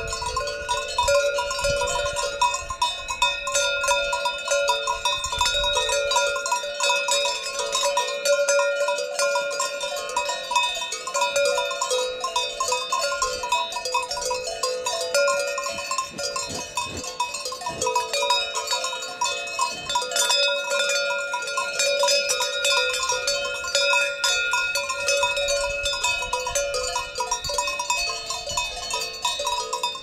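Many cowbells worn by cows clanking and ringing together at several different pitches, overlapping without pause.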